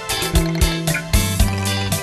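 Instrumental karaoke backing track of a Khmer duet song, with no vocals. A steady drum beat runs over held low bass notes and sustained melody tones.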